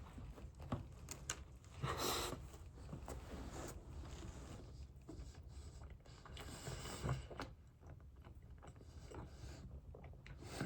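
Faint chewing of a cookies and cream filled donut, close to the microphone, with a short hiss about two seconds in.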